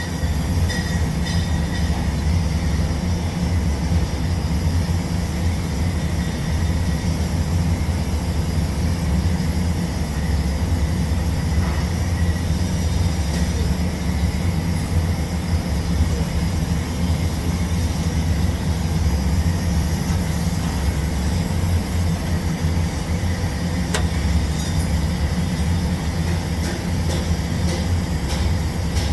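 TIG welding arc on steel pipe during a root pass: a steady low hum with a hiss over it.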